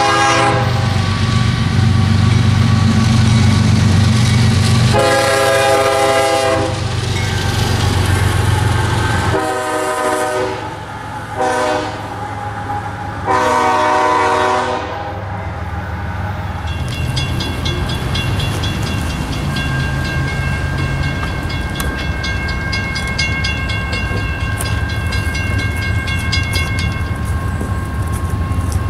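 Diesel locomotive air horn sounding several blasts, long ones with a short one near the middle, over the low rumble of the train. From about halfway in the horn stops, and a steady high ringing with a rapid even ticking carries on over the rumble.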